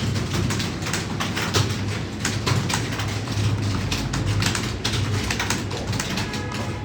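Several people typing fast on computer keyboards at once, the keystrokes overlapping in a dense, irregular clatter over a steady low hum.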